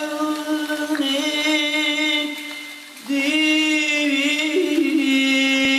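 Vocal music: a solo singer holding long, wavering notes, with a new phrase starting about a second in and another about three seconds in.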